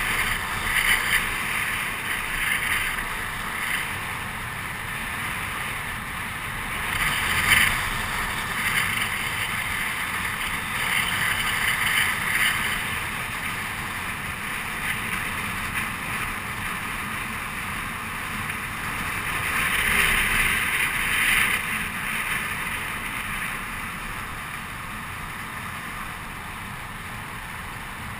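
Wind rushing over the microphone and longboard wheels rolling on asphalt at downhill speed: a steady rushing noise that swells louder several times.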